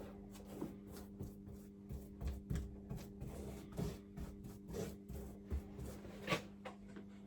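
A paintbrush dabbing and rubbing brush-grade fire-stopping paint onto the cut edges of a fire batt. It makes irregular soft scrapes and taps, a few a second, with a sharper tap near the end. A steady low hum runs underneath.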